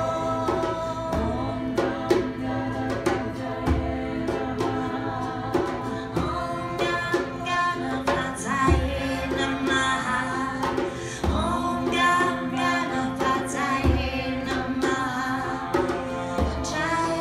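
Live devotional chant: singing over a steady harmonium drone, with ukulele and a hand frame drum beating regular low strokes.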